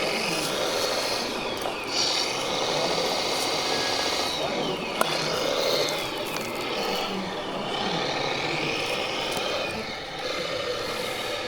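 Whining electric drive motors and gearboxes of radio-controlled model trucks and tractors, several whines falling in pitch as the models slow down, with a sharp click about five seconds in and voices in the background.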